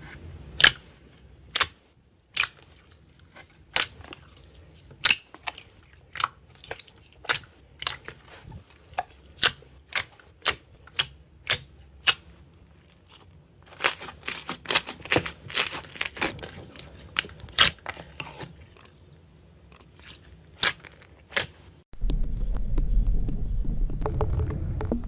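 Slime being squeezed and poked, giving sharp wet clicks and pops about twice a second, coming faster in the middle. About three seconds before the end, a louder, steady low sound starts suddenly.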